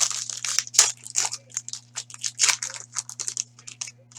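Foil trading-card pack wrapper being torn open and crinkled by hand: a rapid, irregular run of crackling rustles. A faint steady electrical hum runs underneath.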